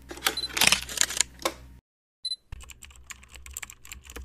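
Keyboard typing sound effect: rapid key clicks, denser and louder at first, a brief pause a little under two seconds in, then lighter clicking, sounding under text typed out letter by letter.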